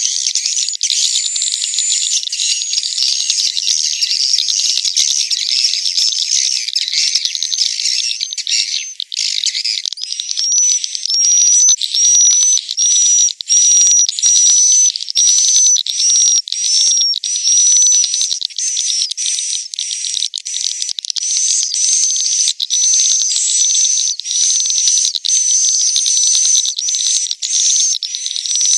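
Edible-nest swiftlets' roosting chatter: a dense, continuous stream of high chirps and clicks. From about ten seconds in, a repeating high whistled note sounds a little more than once a second. This is the 'inap' roosting call, played to draw swiftlets in to stay in a swiftlet house.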